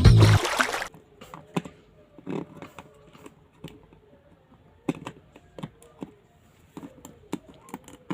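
Music cutting off about a second in, then irregular small clicks and soft rustles of a plastic toy and its packaging being handled.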